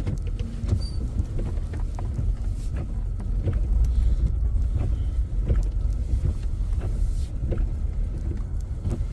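A truck driving through snow, heard from inside the cab: a steady low rumble with scattered light clicks and knocks.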